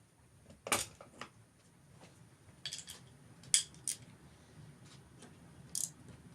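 Small metal parts and tools clinking and clicking as they are handled on a workbench: a handful of separate sharp knocks, the loudest about three and a half seconds in.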